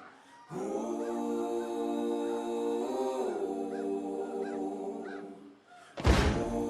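Background music: held synthesizer chords that shift once partway through and fade out, then loud drum hits come in near the end.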